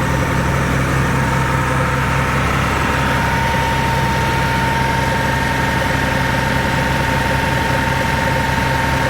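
Caterpillar 3306 natural gas engine running steadily under load, firing evenly now that the misfire on its number 6 cylinder has been cured. A thin, steady whine sits over the engine note.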